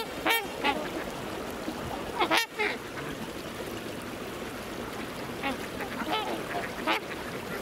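Waterfowl calling: short honking calls, a few near the start, a cluster just past two seconds and several more toward the end, over a steady background rush.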